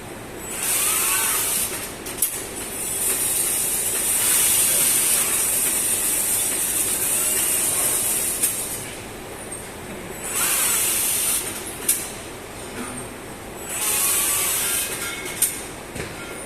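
Automated ABB robot stud-welding cell cycling: repeated bursts of compressed-air hiss lasting one to several seconds, robot servo motors whining in short rising and falling glides, and three sharp cracks spread through the cycle.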